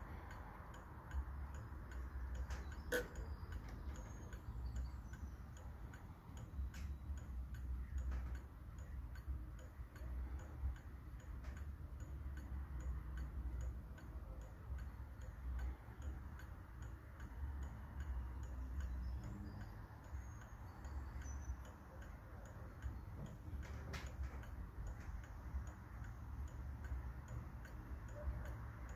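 Antique Lenzkirch-style German mantel clock by Mueller & Co ticking steadily as its pendulum swings, with a few louder clicks among the even ticks.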